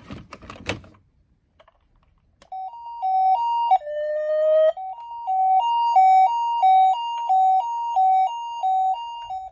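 Toy ambulance's electronic siren playing the Japanese two-tone 'pee-po' ambulance call, a high and a low note alternating steadily, broken once by a short rising tone. Just before it, a brief clatter of plastic toys being lifted out of a cardboard box.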